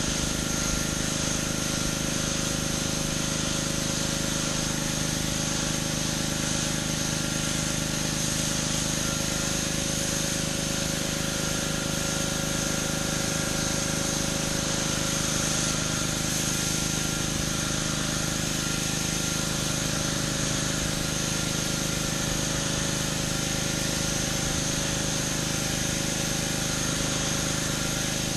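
Pressure washer running steadily on concrete: a constant engine drone under the hiss of the high-pressure water spray.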